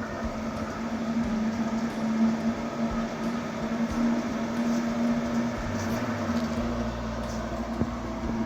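Small brushless mirror motor from a Tomra machine running with a steady hum. A deeper hum joins about two-thirds of the way in.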